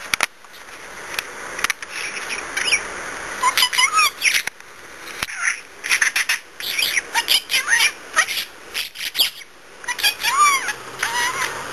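Pet budgerigar chirping and warbling in quick, short gliding notes, with sharp clicks between them.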